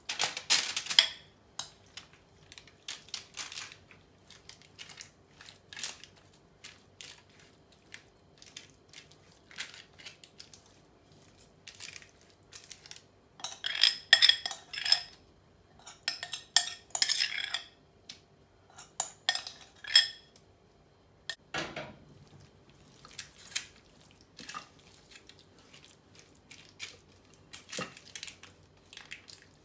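A metal spoon clinks and scrapes against a glass mixing bowl as a sticky granola mixture is scraped out, with the loudest ringing clinks around the middle. A dull knock follows a little past two-thirds through, then softer spoon scrapes as the mixture is pressed flat in a baking dish.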